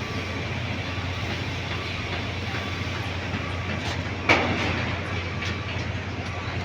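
Stick welding arc crackling and hissing steadily over a low hum, with one sharp knock about four seconds in.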